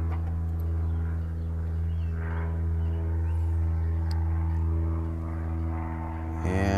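A steady low hum with even, unchanging overtones, like a motor or machine running at a constant speed.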